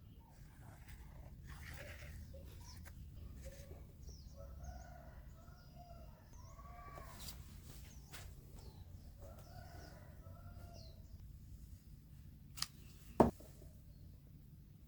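Bird calls, several short repeated calls, with high chirps above them over a low hum; near the end, two sharp knocks, the second one loud.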